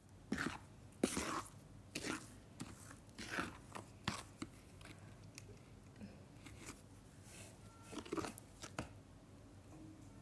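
A spoon stirring and squelching through thick wet clay paste in a bowl, with irregular wet, gritty strokes about once a second at first. The strokes then thin to faint clicks, with another short burst of strokes a little after 8 seconds.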